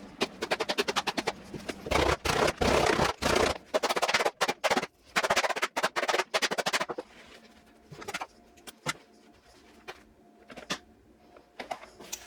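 A mallet pounding the pocket of a new leather slow-pitch softball glove to break it in. It strikes in fast runs of several blows a second for about seven seconds, then gives a few single, spaced-out strikes.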